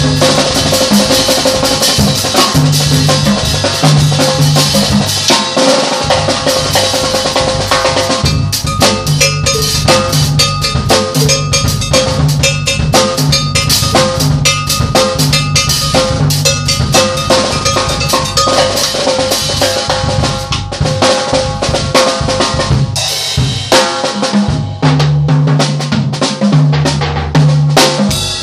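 Drum kit played with sticks in a steady groove of bass drum, snare and cymbals, over a backing track whose bass notes change in steps.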